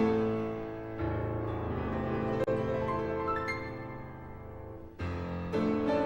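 Instrumental background music on a keyboard instrument: held chords, with new chords struck about a second in and again near the end.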